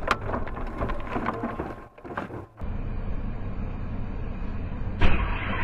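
Road and engine noise of a moving car, picked up inside the cabin by a dashcam. The noise drops away for about half a second around two seconds in, then resumes steady, and grows louder near the end.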